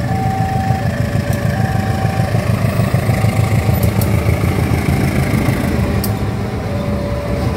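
CC 203 diesel-electric locomotive passing close by with a loud, steady low engine rumble. Over it, a level-crossing warning alarm alternates between two tones, high and low.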